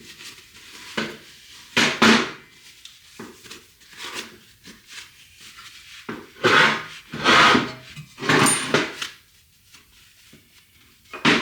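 A few short scrapes and knocks of metal hub parts being handled and rubbed, each under a second, with a quieter stretch between the first and the rest.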